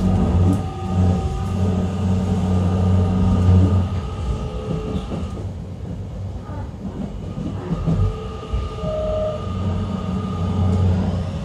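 Running sound inside a JR Kyushu 813 series 1100 subseries motor car: a steady hum from the inverter and traction motors over the rumble of wheels on rail. The hum drops away for about two and a half seconds in the middle, then returns, with tones rising in pitch near the end.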